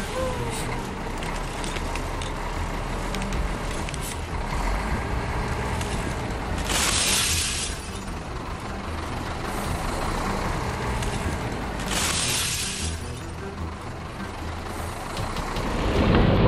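A heavy truck runs with a low rumble while its tyre crushes a stack of glass sheets, the glass crunching and cracking underneath. Two short hisses, like air-brake releases, come several seconds apart.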